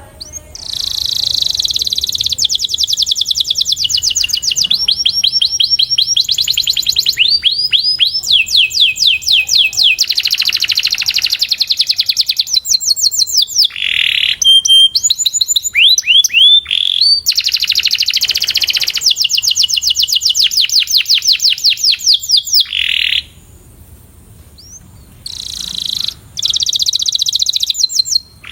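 Canary singing a long, fast song of rapid trills and quick rising and falling sweeps, with a short pause near the end before it sings on.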